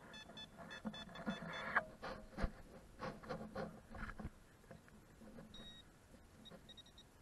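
Teknetics Minuteman metal detector beeping rapidly over a buried target, stopping about two seconds in. Then a few knocks and scrapes of a hand digger in the soil, with faint short beeps near the end.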